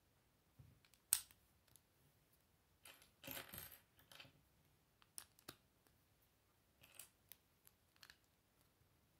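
Plastic Lego bricks clicking and clattering as they are handled and pressed together by hand: a sharp click about a second in, a short clatter around three seconds, then scattered lighter clicks.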